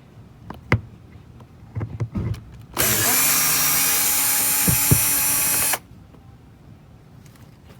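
Power drill/driver running steadily for about three seconds, backing out the last door-panel screw, then stopping abruptly. A few small clicks and knocks come before it.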